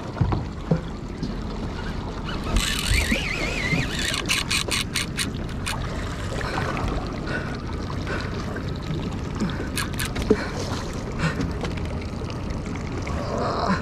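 Steady wind on the microphone and water noise around an open boat while a fish is fought on rod and baitcasting reel. About two and a half seconds in there is a short hissing whine with a wavering pitch, followed by a quick run of sharp clicks, and a few more clicks later on.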